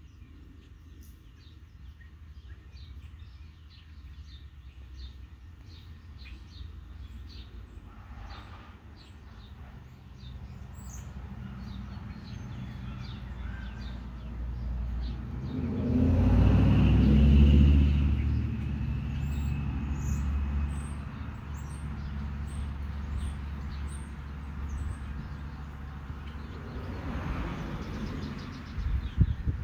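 A vehicle passing by: a low rumble that builds slowly, is loudest about halfway through, then fades, with a second, smaller pass near the end. Small birds chirp throughout.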